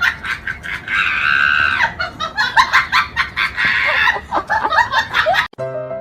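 A rapid series of short, high, clucking or chirping animal calls with one longer held call about a second in; piano music starts near the end.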